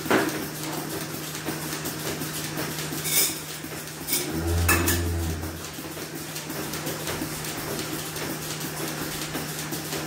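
Metal clanks and knocks from the steel milk-line pipework and filter fittings being handled: a few sharp ones in the first five seconds and one heavier, ringing knock about halfway. Under them runs the steady low hum of the milking machine.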